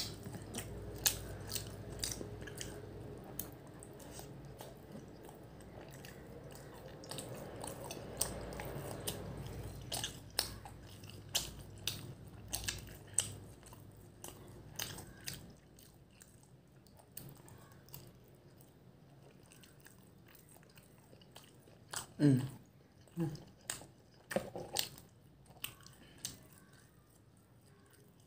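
Close-up chewing of soft Swedish meatballs in gravy: wet mouth clicks and smacks that come irregularly, several a second at times.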